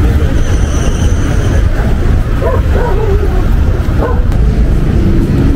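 Busy city street at night: a steady, heavy traffic rumble with passers-by, and a few short pitch-bending calls around the middle.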